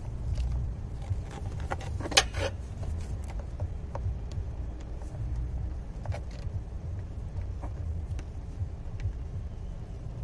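Scattered light metallic clicks and clinks of hand tools and parts being handled under the hood, the loudest a short ringing clink about two seconds in, over a steady low rumble.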